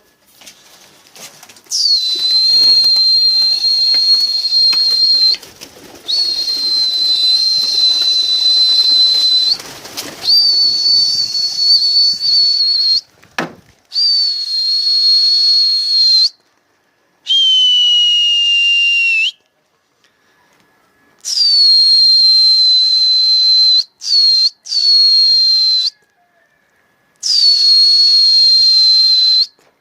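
A series of about eight loud, long whistle blasts of the kind a pigeon keeper gives to keep his flock flying. Each blast lasts two to four seconds, opens with a quick drop in pitch and then holds steady on one high note; one blast near the middle is lower.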